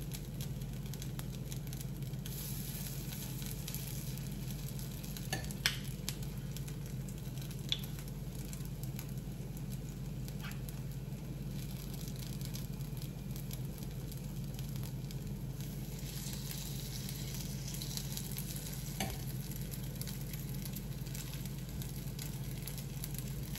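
Appam batter sizzling gently in a greased appam pan over a steady low hum, with a few light clicks of a spoon against the pan and batter bowl as the cups are filled.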